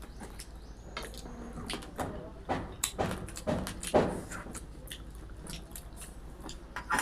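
People chewing and biting into crisp fried food, with irregular crunches.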